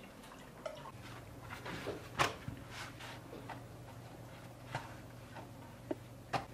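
Soft rustling and scattered light clicks of thin baked lavash sheets being lifted and folded by hand, with a sharper click about two seconds in. A low steady hum sits underneath from about a second in.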